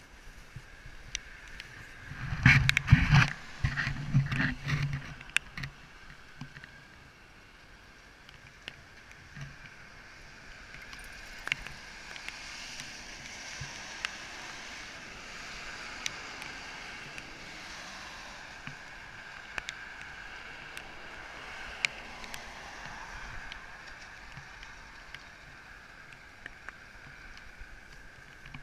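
Traffic on a wet road: tyre hiss and spray from passing cars, swelling and fading for much of the time. A louder, low rumbling burst comes a couple of seconds in.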